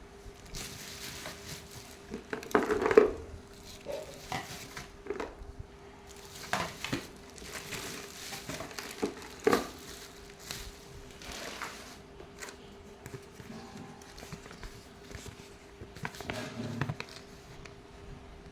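Crinkling and scattered light knocks of things being handled, loudest about three seconds in and again about nine and a half seconds in, over a faint steady hum.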